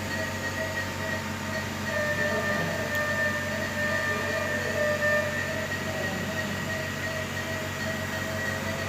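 Steady machine hum with two high, even whining tones from a neonatal ventilator.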